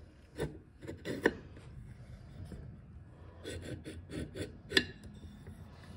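Small steel parts of a Remington 597 rifle's receiver scraping and clicking as the bolt guide rods are worked out by hand. The sounds come in two short flurries, each ending in a sharp metallic click.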